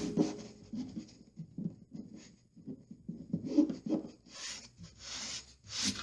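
Lining paper being handled and smoothed onto the wall, with light taps and rustles, then several short brushing strokes across the paper in the second half.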